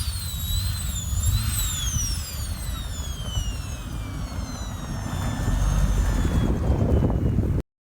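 Borg Warner EFR7163 turbocharger on an Audi 200 20V's turbo five-cylinder, whistling high through its drilled but unplugged speed-sensor port. The whine rises and dips with the throttle for the first couple of seconds, then falls in one long slow glide as the turbo spools down, over the low rumble of the engine, and cuts off abruptly near the end.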